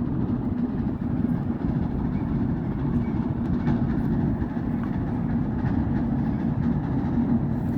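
Steady low rumble of a boat's engine and hull vibration, with a faint steady hum underneath.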